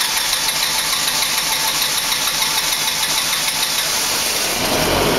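Generac standby generator's engine running just after being started by switching its control panel to manual; near the end a deeper rumble and a steady hum come in as it settles to running.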